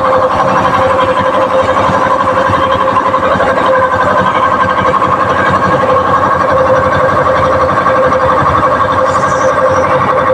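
Tire-changer machine running steadily while a tire is worked off its rim: a constant mechanical hum with a fast rattle.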